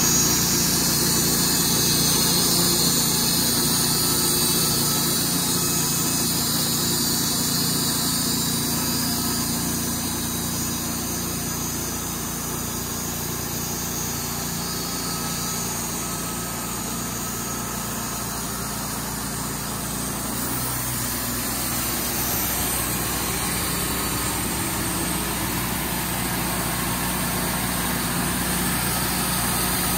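An engine running steadily; its pitch and level shift slightly about twenty seconds in.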